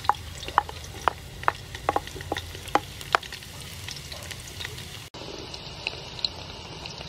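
Chopped garlic sizzling in hot soybean oil in a metal pot, with sharp pops about every half second. About five seconds in, the sound changes to a softer sizzle with small ticks as a wooden spoon stirs the garlic.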